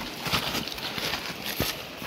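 Boots crunching and scuffing over loose moraine rock, with the tips of trekking poles clicking on the stones: irregular crunches and clacks of a person walking on scree.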